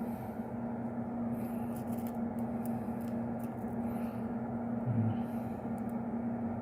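Soldering fume-extractor fan running with a steady hum, with a few faint clicks of the wires being handled.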